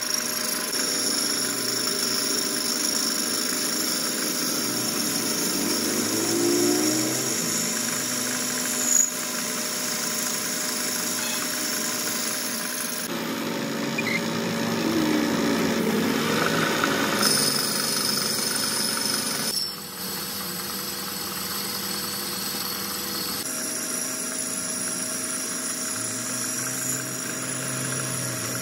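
Metal lathe running, its tool bit boring the inside of a spinning cylindrical piston blank: a steady machine hum with cutting noise. The sound changes abruptly about three times.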